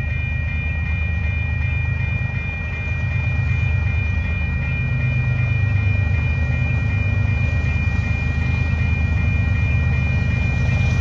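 Canadian Pacific ES44AC diesel locomotive's GEVO V12 engine rumbling under power as it pulls an autorack freight train toward the listener, getting louder about three seconds in. A steady high-pitched tone sounds above the rumble.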